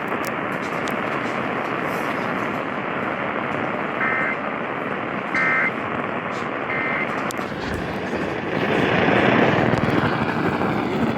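Three short bursts of Emergency Alert System end-of-message data tones, the two-tone SAME code that closes an alert, each about a third of a second and spaced about a second and a half apart, over steady radio static. The static grows louder near the end.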